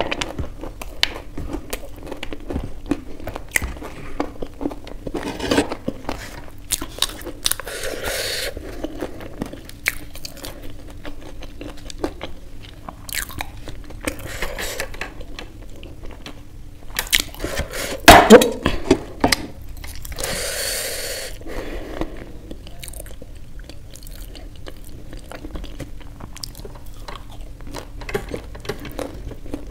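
Chewing and crunching as a person eats samosa and raw onion pieces, with many small mouth clicks and a louder burst of crunching about eighteen seconds in.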